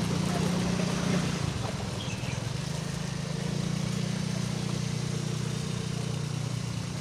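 Motorcycle engine running steadily close by, a low even hum with street traffic behind it.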